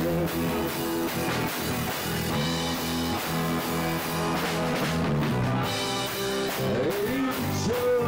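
Live rock band playing: electric guitar and drum kit, with a singer's voice rising and falling near the end.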